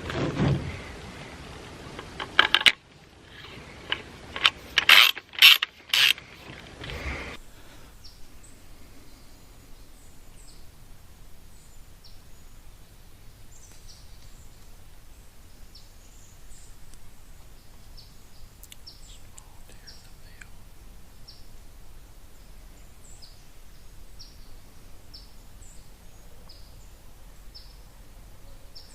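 Clunks and rattles of gear being handled for the first several seconds, then quiet woods where a small bird repeats a short, high chip note about once a second.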